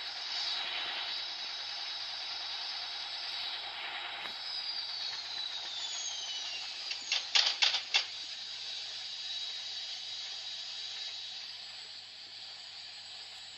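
Gorenje washing machine running with a steady hiss and hum. A little before the middle a whine falls in pitch, and just past the middle comes a quick run of about five loud clacks.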